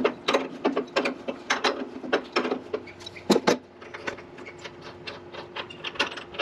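Socket ratchet wrench clicking in short, irregular strokes as a bolt is turned, several clicks a second.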